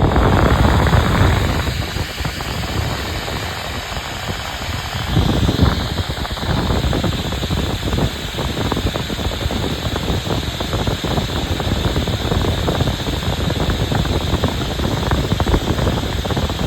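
Diesel heater's fan running, a loud steady rush of air with some buffeting. The air is being drawn through the inlet manifold with its factory restrictor in place for a flow test.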